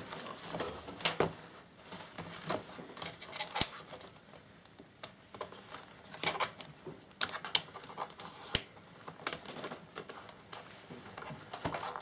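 Irregular clicks, taps and knocks of hard plastic as a Toshiba laptop is handled upside down and its battery release latches are worked to free the battery.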